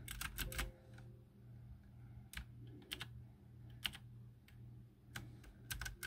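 Keys of a Camiysn typewriter-style mechanical keyboard with clicky blue switches being pressed: a quick run of clicks at the start, then scattered single keystrokes, and a short flurry near the end.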